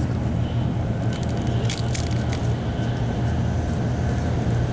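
Steady low rumble of a Shinkansen bullet train running at speed, heard from inside the passenger cabin, with a few short crackles between about one and two and a half seconds in.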